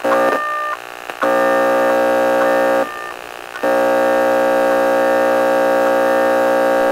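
Telephone-line tones: a couple of short beeps, then a buzzing, steady-pitched phone tone in two long stretches with a short break between them.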